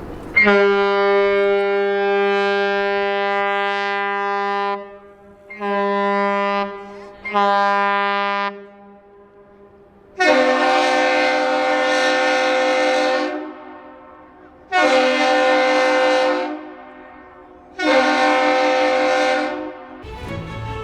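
Two different horns exchanging the same signal. A deep horn gives one long blast and two short ones, then a brighter, harsher horn answers with one long and two short blasts. This is the long-short-short salute traded between a lake freighter and the Duluth Aerial Lift Bridge as the ship passes through.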